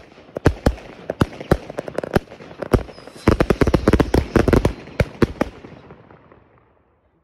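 Custom fan firework cake firing its last shots: a quick string of sharp bangs from shots lifting and shells breaking, over a hiss, densest from about three to five and a half seconds in. Crackling then fades out near the end.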